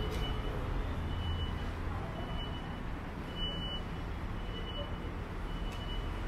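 Electronic warning beeper giving a short, high beep about once a second, over the low rumble of passing road traffic.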